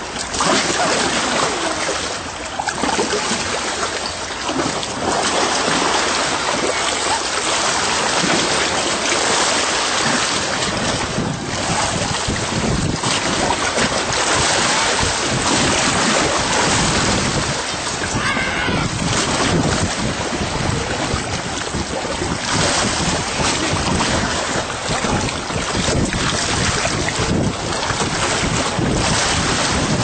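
Wind buffeting the microphone over shallow sea water washing and splashing at the surface, a steady rushing noise that rises and falls.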